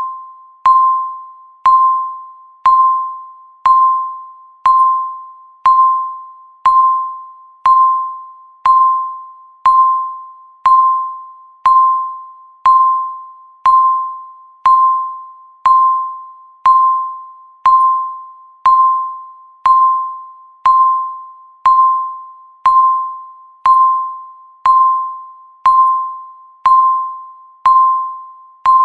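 Countdown timer's electronic beep sounding once every second: a single clear tone that starts sharply and fades away before the next beep, each one marking a second ticked off.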